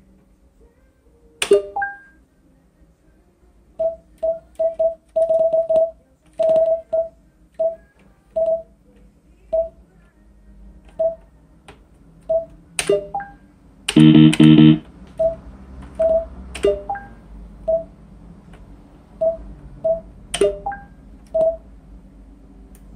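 Sengoku Otome Saigoku Sansen-hen pachislot machine spinning on auto-play: a string of short electronic beeps at one pitch, unevenly spaced, and a few sharp clicks followed by short tones. A loud buzzing effect sound lasts just under a second about 14 s in.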